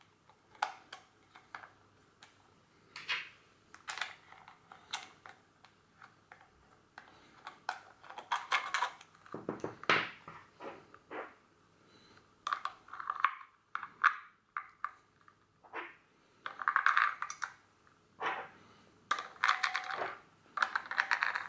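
Irregular clicks, rattles and short scrapes of hands handling the grip of a Revue Super 8 Pocket Sport camera: the battery cover at its base is worked loose and taken off, the small cover plate is set down, and the batteries inside are handled.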